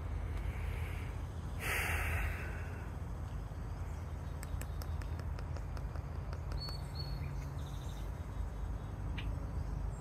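Outdoor ambience with a steady low rumble, a short burst of noise about two seconds in, and two faint high bird chirps a little past the middle.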